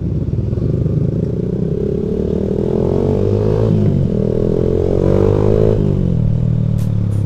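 Vehicle engine accelerating through the gears: its pitch rises, drops at a gear change about three and a half seconds in, rises again and drops once more near six seconds.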